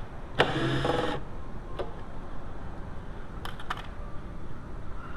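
Hand tools working the Torx bolts of a car door's inner panel: a short whir about half a second in, then a few light, sharp clicks.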